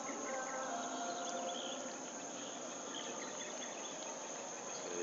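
Steady chorus of insects, a continuous high-pitched drone.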